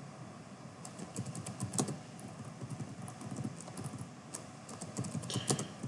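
Computer keyboard keystrokes: irregular runs of light key clicks, including repeated shortcut presses such as F4 while editing spreadsheet formulas.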